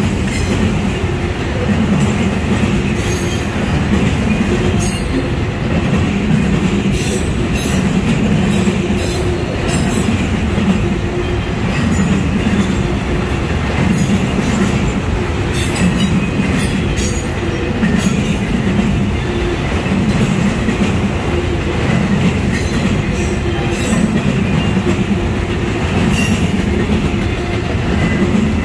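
Autorack freight cars rolling past at close range: a steady loud rumble and clatter of steel wheels on rail, swelling in a rhythm about every two seconds, with scattered sharp clicks and clanks.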